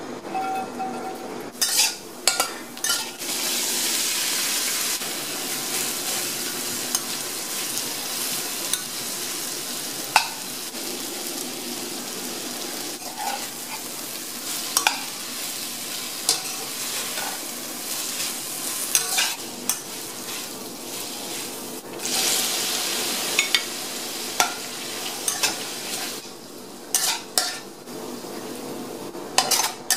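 Food sizzling in hot oil in a stainless steel wok while being stir-fried, with a metal spatula repeatedly scraping and clacking against the pan. The sizzle swells louder a few times as food is turned.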